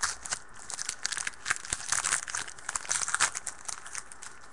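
A foil trading-card pack wrapper being torn open and crinkled by hand: a dense run of sharp, crackly rustles.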